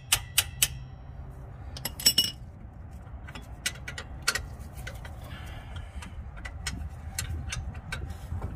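Sharp metallic hits on a wrench to shock loose a 14 mm rear brake caliper bolt: a few quick strikes at the start and a ringing pair about two seconds in, followed by lighter, irregular metal clicks.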